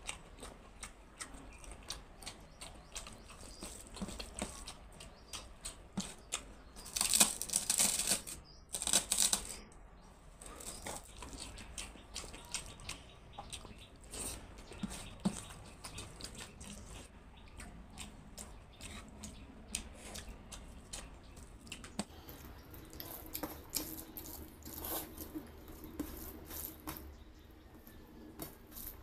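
Close-miked eating by hand: fingers squishing and mixing rice and dal on a steel plate, with wet mouth and chewing sounds. Many small wet clicks and smacks, and two louder, noisier stretches of about a second each, about seven and nine seconds in.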